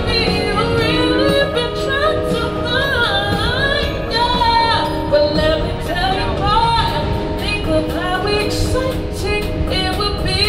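A woman sings through a handheld microphone, her voice gliding up and down in long melodic runs over sustained accompanying chords, with a low rumble beneath.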